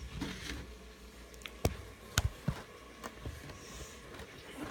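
A few sharp knocks and clicks with light rustling, the loudest a little over a second and a half and about two seconds in: a phone being handled and moved about.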